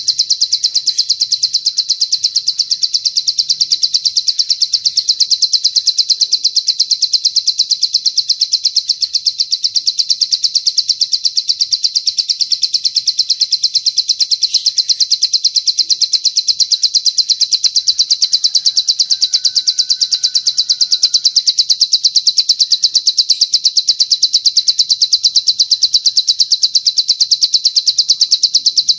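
A cililin's long song: a high-pitched trill of rapid, evenly repeated notes, steady and unbroken throughout.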